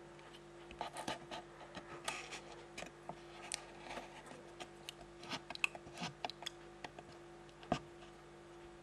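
Faint scratching, rubbing and small irregular clicks of a paper label being pressed and smoothed onto a DDR memory module by hand, over a low steady hum.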